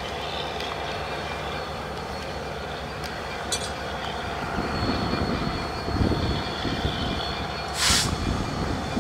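A passenger train running past on the track: a steady rumble and rattle of the coaches and wheels on the rails, with a short hiss just before the end.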